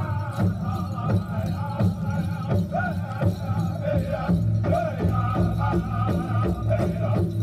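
Powwow song: a drum group singing over a steady big-drum beat.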